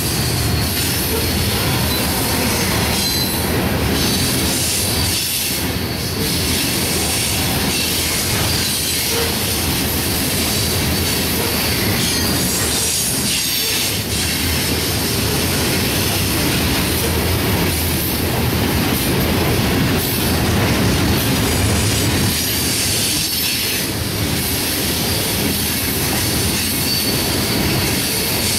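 Coal train's hopper cars rolling past at speed: a steady, loud rumble and clatter of steel wheels on the rails, with some high squeal from the wheels.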